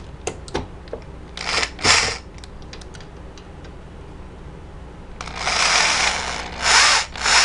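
Corded electric drill run in short bursts against the projector's metal lamp housing, with small clicks and knocks between. The longest run comes about five seconds in, followed by two brief ones.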